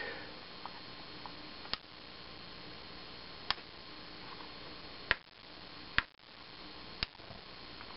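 A few sharp, separate clicks, about five spread over several seconds, from pressing buttons on and handling a handheld wireless fireworks firing remote while pairing it to the firing module.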